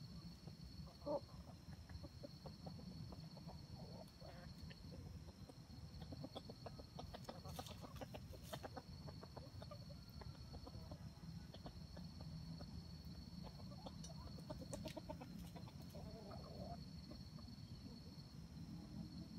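Wild junglefowl clucking softly while they forage, with one short louder call about a second in, over a steady high drone of insects.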